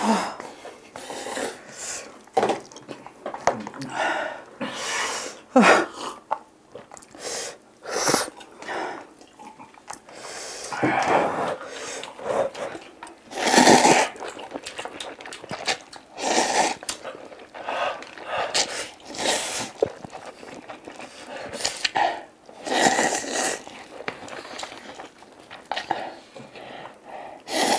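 Two people eating spicy buldak fire noodles as fast as they can: noisy slurping and chewing at irregular intervals, the loudest slurps about halfway through, with snorting and coughing sounds as they struggle with the heat.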